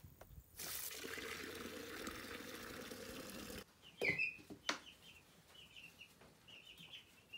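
Water running steadily from a garden hose for about three seconds, then cutting off abruptly. After it come a few faint, short high chirps of chicks and a couple of light knocks.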